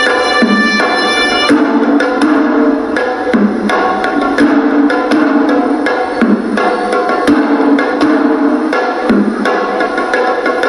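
Hewisi ensemble playing: Sri Lankan ritual drums beat a fast, dense rhythm while a shrill double-reed pipe (horanewa) plays a held, stepping melody over them.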